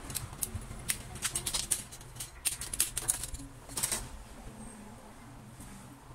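Irregular sharp plastic clicks and taps as a notebook's casing, bezel and parts are handled during disassembly, most of them in the first four seconds and then fewer.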